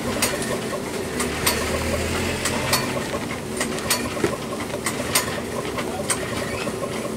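Motor-driven mincer-type grinding mill running steadily as it grinds peanuts and red chilies into peanut-sauce paste, with sharp clicks at irregular intervals over its hum.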